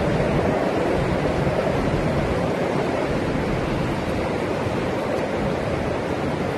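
Hurricane wind and surf: a loud, steady rush of storm noise with no break.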